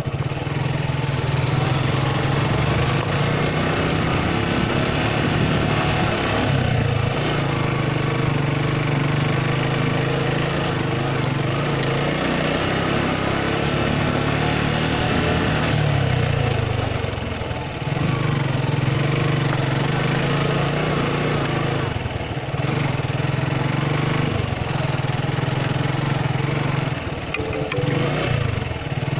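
Suzuki Gixxer motorcycle engine running while the bike is ridden over a rough dirt track, heard from on board. The engine note is steady, easing off and picking up again several times as the throttle is rolled off and reopened.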